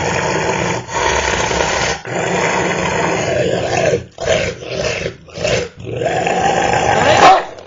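Black-and-tan dog growling, guarding a beer bottle while a hand touches its head: a resource-guarding warning. Long unbroken growls give way to several short growls near the middle, then one long growl that builds to its loudest just before it stops.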